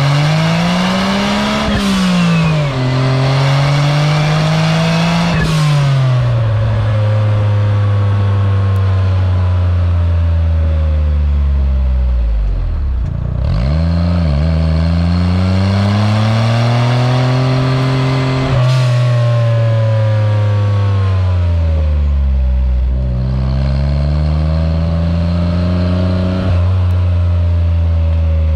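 Turbocharged Suzuki F6A three-cylinder engine of an Autozam AZ-1, breathing through an Originality catalyst downpipe and dual-tip muffler, with a much deeper tone, while driving. Revs climb and drop sharply at two quick upshifts, fall away as the car slows, climb again through another shift, then ease down to a steady cruise.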